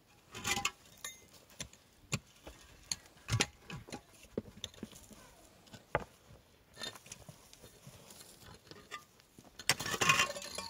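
Irregular sharp knocks and taps of a hammer on concrete blocks and stones, a second or so apart, with a denser run of clatter near the end.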